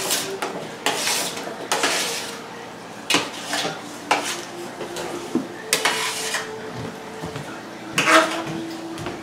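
Kitchenware clattering: dishes and metal utensils clinking and knocking in a string of irregular strikes, the loudest about eight seconds in.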